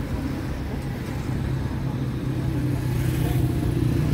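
A motor vehicle's engine running as a steady low hum that grows louder toward the end, as if the vehicle is drawing closer.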